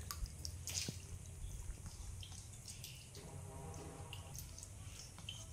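Faint splashing and dripping of water in a plastic basin as a baby monkey paddles and swims in it, with scattered small splashes.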